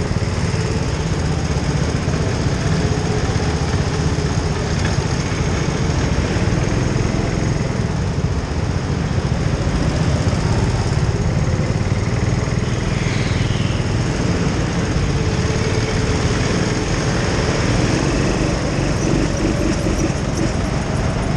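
Go-kart running at racing speed, heard from a camera mounted on the kart: a steady motor and drivetrain noise over a heavy low rumble, without breaks.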